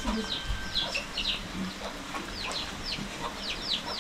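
Chickens calling with short, high, falling chirps, several in quick succession.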